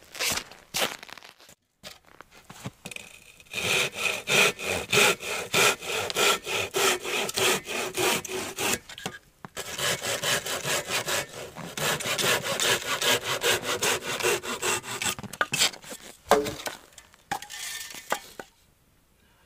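Hand saw cutting through a firewood log with quick, even strokes, about two a second, and a steady ring under them. The sawing starts a few seconds in and stops a few seconds before the end, with a few knocks of wood before and after.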